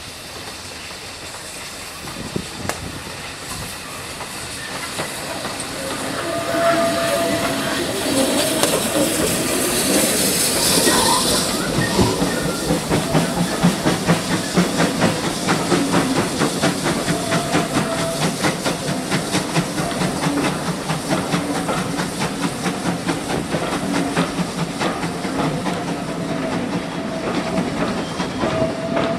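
Steam locomotive approaching and passing, its steam hissing loudly for a few seconds, followed by a long train of coaches rolling by with a steady clickety-clack of wheels over the rail joints. A thin squeal sounds briefly now and then.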